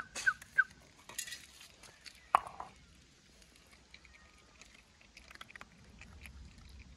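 An animal calling in a quick run of short, high yelps, about three a second, which stops within the first second, with bursts of hissing. One sharp cry comes about two and a half seconds in, followed by faint ticks and rustling.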